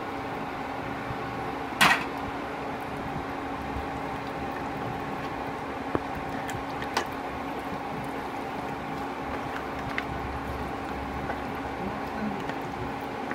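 A spatula stirring through pork trotters in sauce in a nonstick pan, with one sharp knock about two seconds in and a few lighter taps later, over a steady hum.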